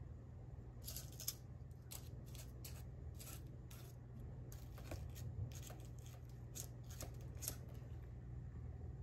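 Faint, irregular clicks and light scrapes of a metal spoon working buttered biscuit crumbs into paper cupcake liners in a metal muffin tin.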